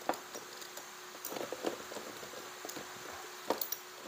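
A few small, separate clicks and taps of metal air-rifle parts being handled and fitted by hand, with a faint steady hum underneath.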